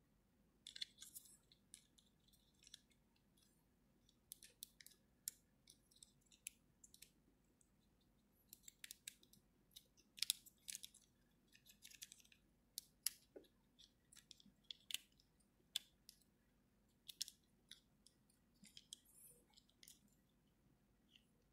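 Faint, irregular clicks and scrapes of 3D-printed plastic parts as a hand-held robot figure's joints and limbs are moved and repositioned.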